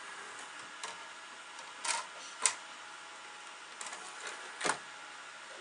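Plastic clicks and knocks of a disc being laid onto an open CD/DVD drive tray and the tray being handled, sharpest about two and a half seconds in and again near the end, over the steady whirr of the computer's fans.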